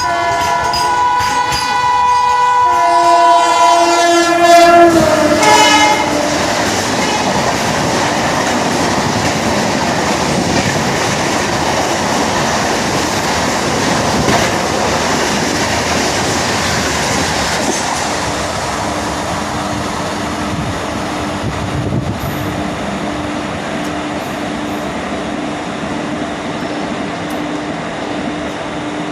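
WAP-7 electric locomotive blaring its horn in repeated, overlapping blasts for about the first six seconds. Then the double-decker express rushes past at speed, wheels clattering over the rail joints, with a steady hum joining in about two-thirds of the way through.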